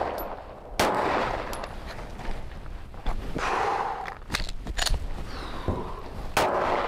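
Pistol shots fired outdoors, each a sharp crack with a short echo, the loudest about a second in and near the end. Smaller sharp clicks and knocks come between them, typical of handling the pistol.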